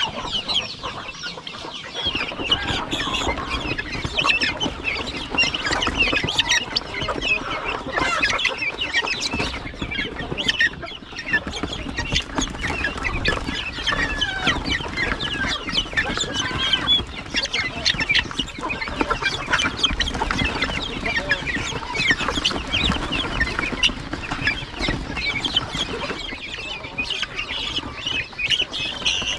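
A crowded flock of young guinea fowl calling at once: many overlapping short, high chirping calls that go on without a break.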